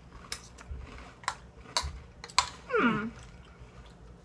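Crisp crunching of a sugary cereal being chewed, with a few sharp clicks of spoons on plastic bowls. A short falling 'mmm' from one of the eaters comes about two-thirds of the way through.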